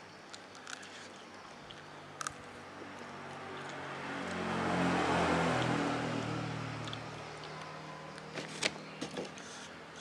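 A motor vehicle passing by, its engine growing louder to a peak about halfway through and then fading away. A few light clicks and smacks of eating and handling bones come before and after it.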